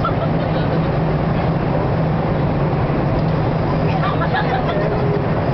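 Steady drone of an airliner cabin in flight, engine and air noise, with faint voices about four seconds in.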